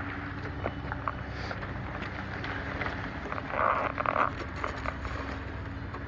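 Steady low rumble of outdoor street noise, with a brief rustling scrape a little past halfway.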